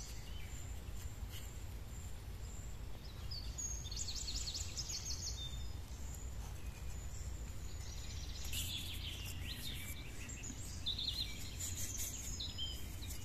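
Bird calls and chirps heard now and then, in clusters a few seconds apart, over a steady low rumble of outdoor background noise.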